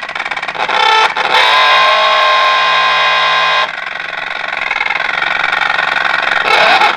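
Steady, distorted beep tone from a radio's loudspeaker: the signal generator's modulated 455 kHz test signal, fed into the IF stage, is passing through to the audio, showing that the IF stage is working. It gets louder about a second in, after a brief click, and drops somewhat in level a little past halfway.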